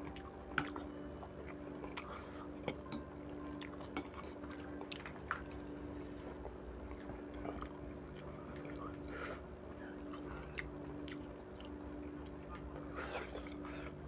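Metal fork and spoon clinking and scraping against a bowl of noodle soup, with a few sharp clinks and softer slurping and chewing as noodles are eaten, over a steady low hum.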